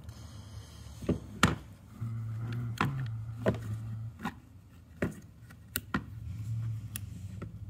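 Scattered sharp clicks and taps of small metal parts against the polymer frame of a CZ P-09 pistol as its hammer pin is worked free, the loudest about a second and a half in, over a low hum that comes and goes.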